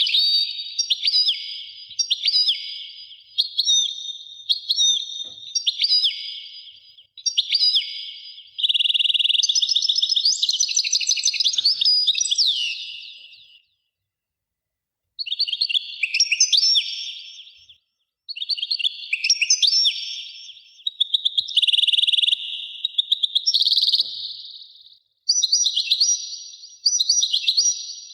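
Many small birds chirping and twittering in a dense, overlapping chorus. It cuts off abruptly to silence about halfway through and again briefly near the end.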